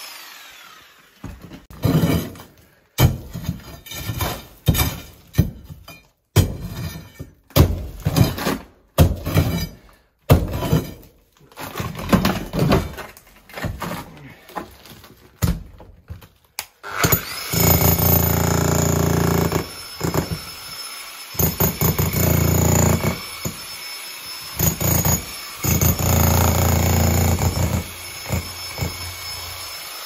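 Makita hammer drill with a chisel bit hammering into a concrete floor slab and breaking it up. It runs in short, stop-start bursts for the first half, then in long steady runs from about 17 seconds in.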